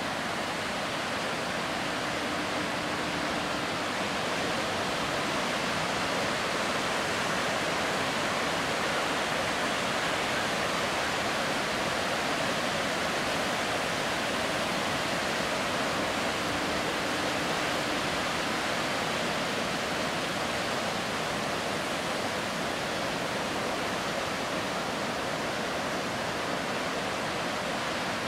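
Heavy storm surf breaking continuously: a steady, even rush of noise with no letup.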